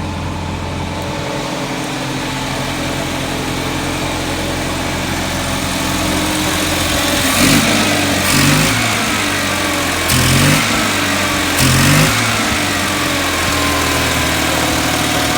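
1979 Datsun 210's carbureted four-cylinder engine idling, with a few short throttle blips in the second half. The engine still has a misfire that fixing the choke did not cure.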